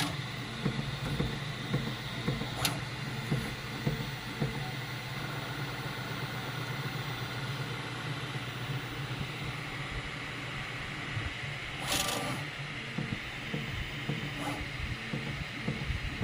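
Bambu P1S 3D printer running mid-print: a steady whine of its motors and fans with small irregular ticks, a click a few seconds in and a brief rush of air about twelve seconds in.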